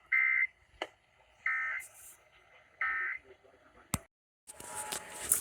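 Emergency Alert System end-of-message code: three short, buzzy digital data bursts about a second and a half apart, the signal that closes the alert. A click and a brief dropout follow, then noisy broadcast audio comes back near the end.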